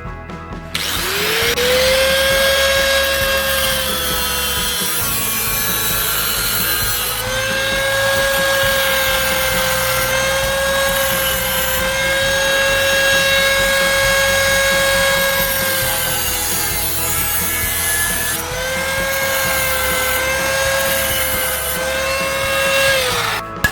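Handheld electric power tool, of the grinder kind, spinning up to a steady high whine with a harsh grinding hiss as it works. Its whine sags under load around five seconds in and again near sixteen seconds, then picks back up. It winds down and stops just before the end.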